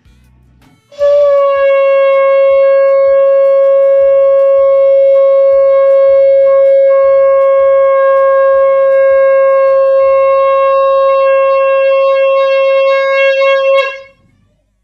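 Conch shell (shankha) blown in one long, loud, steady note of about thirteen seconds. It starts about a second in and cuts off near the end.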